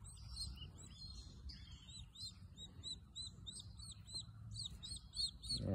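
Turkey poults peeping: a steady series of short, high, rising-and-falling peeps, about four a second.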